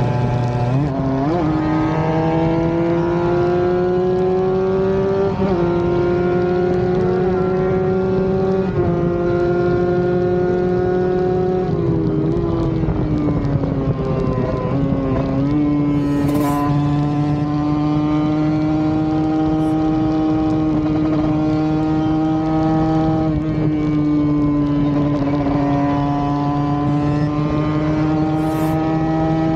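Tuned Kawasaki Ninja 150 RR's single-cylinder two-stroke engine running flat out at high revs. Its pitch climbs and drops sharply at each upshift, about every three seconds through the first half, then holds nearly steady high.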